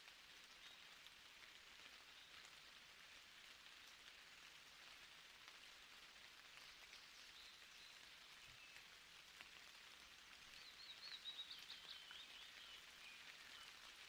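Faint forest ambience: a steady hiss with scattered small ticks. About ten seconds in, a bird sings a short warbling phrase whose last notes are lower.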